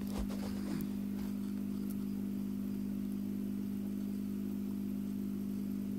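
A steady low motor hum at an even level, with a few faint clicks and rustles in the first second.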